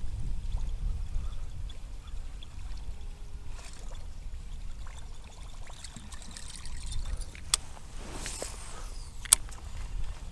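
Water sounds around a kayak, over a low steady rumble. Two sharp knocks come about seven and a half and nine seconds in, with a short rush of noise between them.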